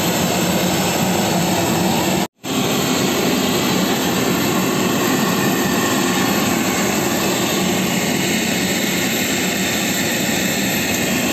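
Steady jet aircraft engine noise, loud and even with a low hum under it. It cuts out for a moment about two seconds in.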